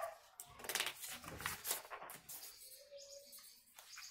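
Sheets of printed paper rustling and crackling in irregular bursts as they are handled and flipped over.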